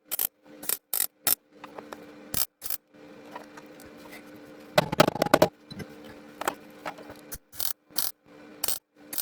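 MIG welder tacking a patch panel in short bursts of sharp crackle, several a second, over a steady hum, with a longer, louder weld crackle about five seconds in.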